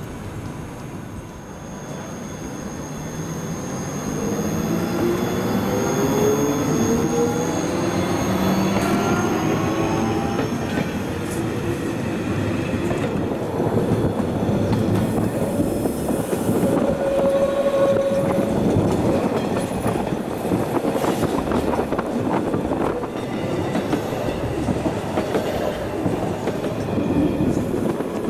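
Bernese Oberland Railway electric train pulling away: a rising whine from the traction motors as it picks up speed. From about halfway in, the wheels clatter over rail joints and points.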